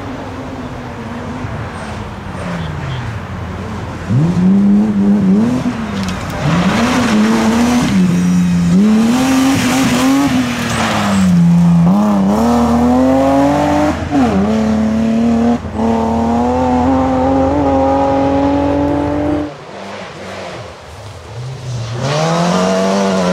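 Rally car engines on a gravel stage, the engine note climbing and dropping again and again as the car accelerates and shifts, loud as it passes close. Near the end a second rally car is heard coming in, its engine rising.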